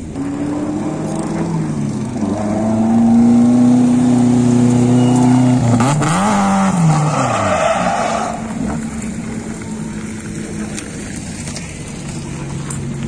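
Toyota AE86 drift car's engine climbing and held at high revs for a few seconds while sliding, then dropping sharply about six seconds in with a burst of tyre noise. It then runs at lower revs, quieter, as the car moves off. The car is still being set up and keeps spinning out for lack of steering angle.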